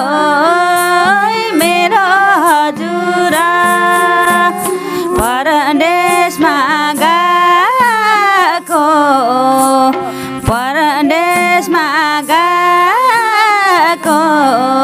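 A woman singing a Nepali folk (lok) song in long, wavering, ornamented notes, over a rhythmic percussion beat.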